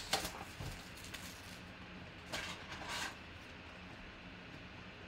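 Plastic shrink wrap crinkling and tearing as it is stripped off a cardboard trading-card box, with the lid handled open. It comes as a few short crackly rustles in the first three seconds, the loudest two about two and three seconds in.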